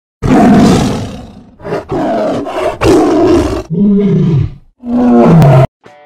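A large animal roaring, five or six loud roars one after another, the last ones falling in pitch, cutting off abruptly.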